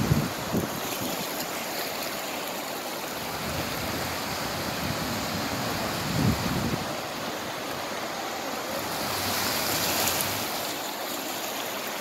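Steady rush of floodwater with cars ploughing through it, swelling about nine seconds in as a car pushes through the water. Brief low bumps of wind or handling on the microphone at the start and about six seconds in.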